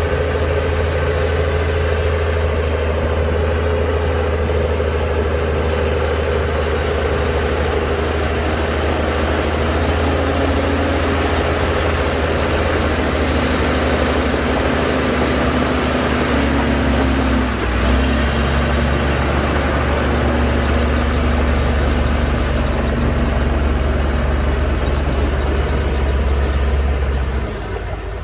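Heavy diesel engine of earthmoving machinery running steadily, with a brief dip about two-thirds in and the engine note dropping shortly before the end.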